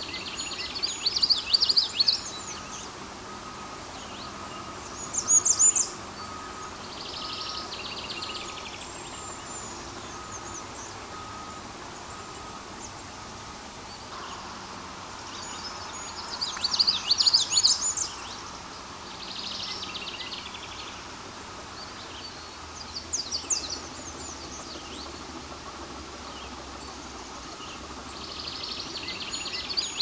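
American redstart singing: short, high-pitched song phrases repeated every few seconds, some loud and close, others fainter.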